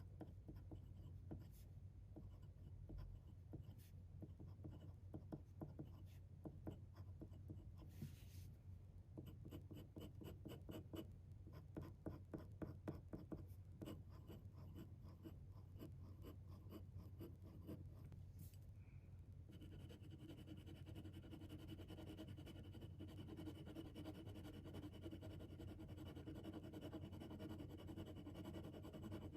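Pen nib scratching on paper in many small quick strokes, faint, as fountain pen ink is swatched and written out. About two-thirds of the way through the scratching stops and a faint steady tone comes in.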